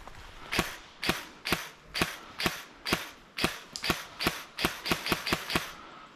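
Airsoft gun firing about fourteen single shots in a row, roughly two a second, coming faster toward the end.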